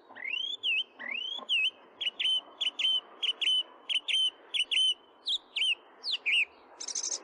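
A bird singing clear whistled notes: two rising slurs, then a run of short repeated notes about three a second, ending with a buzzy rattle.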